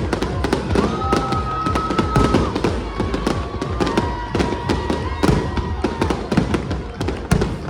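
Fireworks going off in a rapid series of bangs and crackles, with several sharp reports close together.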